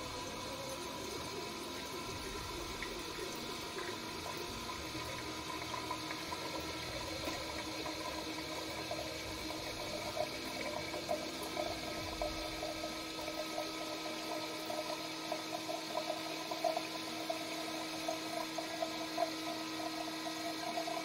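Single-serve coffee maker brewing: its pump hums steadily while a thin stream of coffee pours into a glass jar, with small crackles and splashes growing more frequent in the second half as the jar fills.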